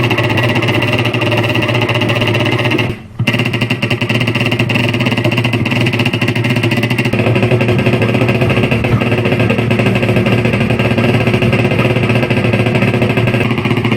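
Toy gun's rapid-fire rattle amplified through an old microphone and speaker, a continuous, loud machine-gun-like chatter that breaks off briefly about three seconds in.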